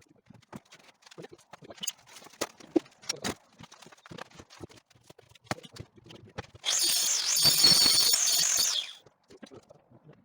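Scattered knocks and clicks of handling work, then a handheld power tool runs for about two seconds with a high whine, starting and stopping abruptly.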